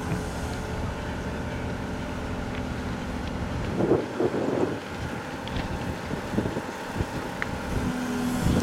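Volvo EC380E L excavator's diesel engine running steadily as the boom swings the raised bucket, with a louder, rougher spell about four seconds in.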